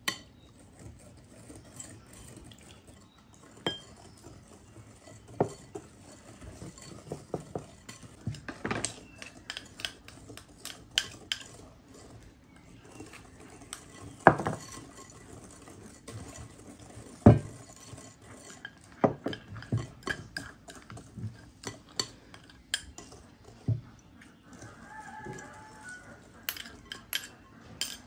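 A wire whisk and spoons stirring in glass bowls, with irregular sharp clinks and taps of metal on glass as batter is beaten; the loudest knocks come about halfway through.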